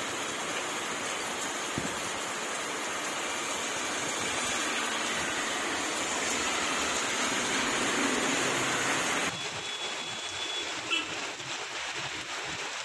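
Heavy rain falling, a steady even hiss. About nine seconds in it cuts to a quieter, duller rain sound.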